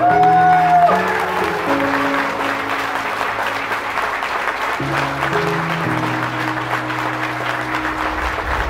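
Wedding guests applauding, starting about a second in and running on steadily, over soft background music with long held notes.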